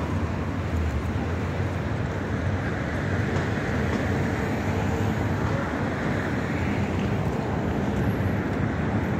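Steady city street traffic noise, a continuous low rumble of vehicles on the road.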